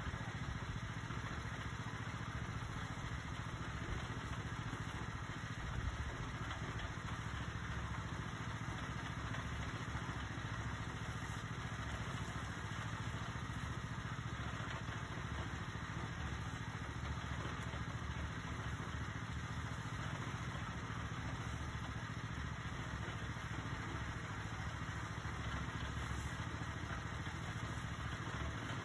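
Engine of a towable concrete mixer running steadily under an even load.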